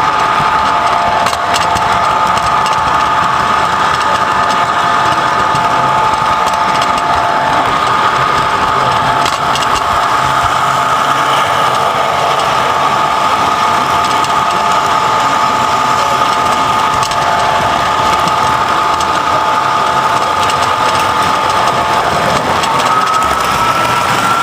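Electric toy train running on three-rail tinplate track, heard up close from on board: a steady whine of several held tones over the rumble of wheels on the rails, rising slightly in pitch near the end.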